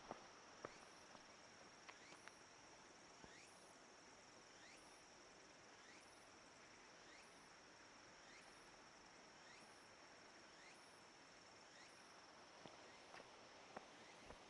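Faint insect calls: a steady high-pitched trill under a short rising call repeated about once every second and a bit. A few light footsteps come near the start and toward the end.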